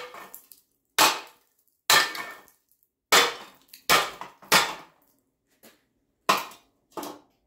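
Hammer blows on the steel of a torch-cut bracket on a front axle tube, knocking the cut bracket off. There are about seven heavy strikes at an uneven pace of roughly one a second, each ringing briefly. A fainter tap falls between the later ones.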